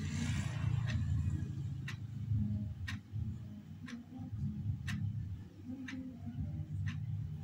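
A clock ticking about once a second over a steady low rumble.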